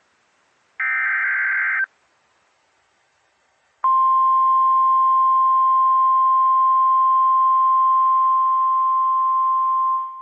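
NOAA Weather Radio alert signal: a one-second warbling burst of SAME digital header data, then after about two seconds of silence the steady single-pitched 1050 Hz warning alarm tone for about six seconds, dropping in level at the end. It marks the start of a warning broadcast, here a special marine warning.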